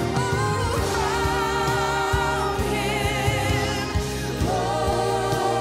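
Live gospel worship music: a woman's lead voice holding long notes with vibrato, with backing singers and a band accompanying.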